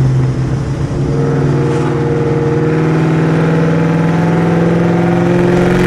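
Cammed, Whipple-supercharged 4.6-litre DOHC V8 of a Terminator Mustang SVT Cobra accelerating under load, its pitch climbing steadily through a long pull from about a second in.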